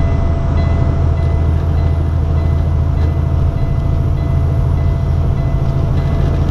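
Truck engine running steadily with road noise at highway speed, heard from inside the cab as a loud, even low drone.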